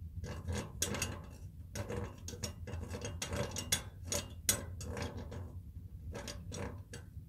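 Metal lower air door of a solid-fuel heating boiler worked by hand, scraping and clanking irregularly as it is closed down to cut the air draught to the fire. A steady low hum runs underneath.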